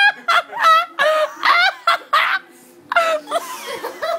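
High-pitched human laughter in short, shrieking bursts with brief gaps between them, dying down briefly about halfway through.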